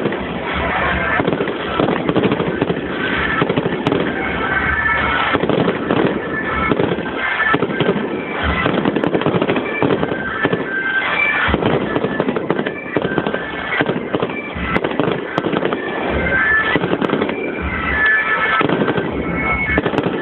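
Fireworks display: a dense, unbroken barrage of bangs and crackling, with short held high tones scattered through it.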